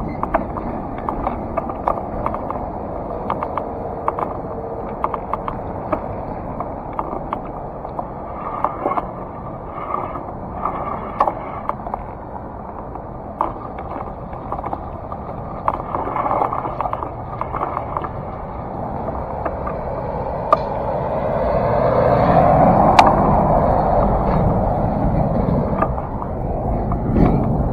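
Steady rolling noise from a camera riding along a street, with frequent small clicks and rattles. Near the end a heavy container truck passes and the noise swells for a few seconds.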